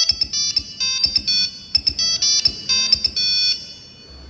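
Mobile phone ringtone playing a quick melody of short electronic notes, which cuts off about three and a half seconds in.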